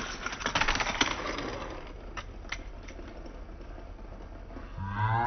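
Hot Wheels die-cast toy car running down an orange plastic track, its wheels rattling in a quick run of clicks over the track for about a second, then a few single clicks as it jumps and lands on the ramps. A voice starts near the end.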